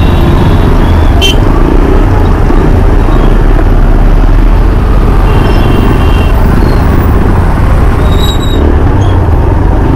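Motorcycle being ridden along a road: its engine runs steadily under heavy wind noise on the microphone. A few brief high tones come through now and then.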